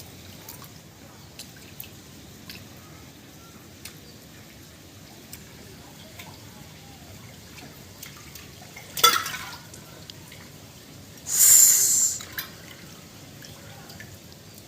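Rainwater dripping and pattering in scattered drops, with a sharp splash about nine seconds in and a longer hissing splash of water about eleven seconds in.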